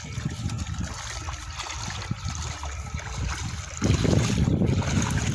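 Shallow pond water swishing and trickling as a seine net is hauled through it by people wading. About four seconds in, a louder low rumble of wind and handling on the microphone comes in.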